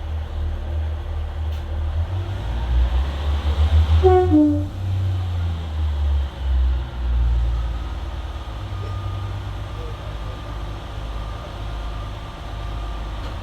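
A diesel train's engine running with a heavy, pulsing low throb. About four seconds in, a short two-note horn sounds, falling from the higher note to the lower.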